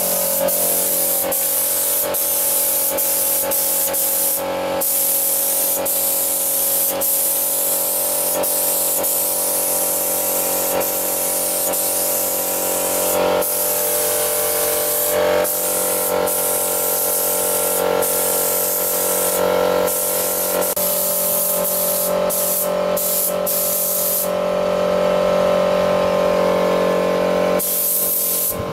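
Compressed-air paint spray gun hissing steadily as it sprays acrylic paint onto a car body. The hiss breaks off briefly several times, over a steady hum underneath.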